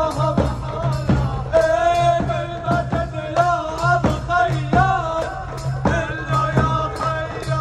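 Amplified live Iraqi pop music through loudspeakers: a singer's wavering, ornamented melody over a steady bass line and a drum beat of about two hits a second.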